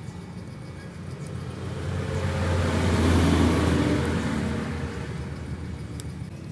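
A vehicle passing by: a noise that swells, is loudest about three seconds in, then fades away.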